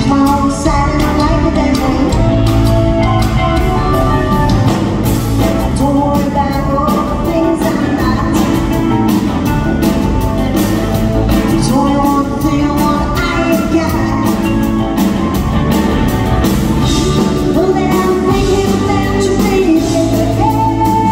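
A woman sings lead over a live rock band of electric guitars, bass guitar, drum kit and keyboards, playing a 1960s pop-rock song with a steady drum beat.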